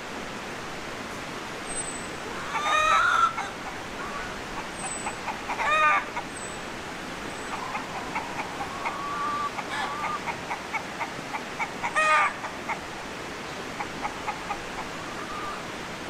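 Domestic chickens calling: three loud, pitched calls a few seconds apart, with a run of short, soft clucks between them. Faint high chirps of small birds come and go over a steady background hiss.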